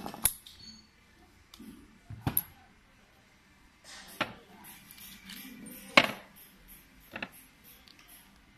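Metal parts of a large brushless outrunner motor clinking and knocking as it is handled and set down on a workbench: a handful of separate sharp knocks, the loudest about six seconds in.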